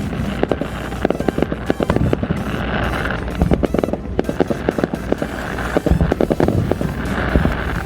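Fireworks going off in quick succession, many sharp bangs and crackles one after another, with music playing underneath.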